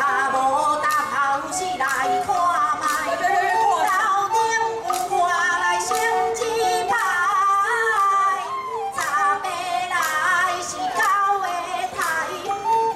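A woman singing a local gezaixi (Taiwanese opera) tune, with sliding, ornamented phrases over melodic instrumental accompaniment and a regular percussion beat.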